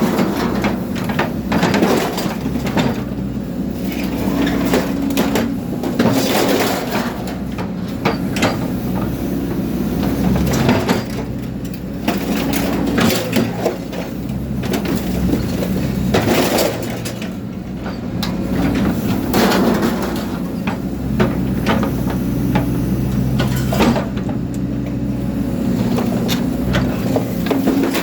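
A heavy machine's engine running steadily, with irregular crunching, cracking and breaking as material is chopped up and crushed.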